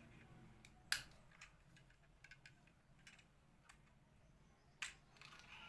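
Scattered light clicks and taps, with a sharp click about a second in and another just before the end.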